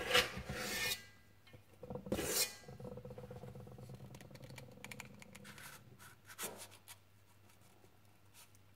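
Metal squeeze-handle portion scoop scraping muffin batter out of a stainless steel mixing bowl, with two sharp scrapes in the first few seconds and then softer rubbing. A few light clicks come near the end as the scoop's release lever sweeps the batter out into a paper muffin liner.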